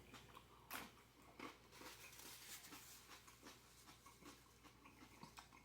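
Near silence with faint chewing and a few soft, irregular mouth clicks while eating.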